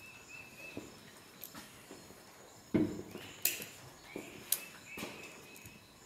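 Hand wire strippers clicking and snipping on the insulated conductors of an extension cord, a few sharp clicks with lighter ticks and handling noise between them.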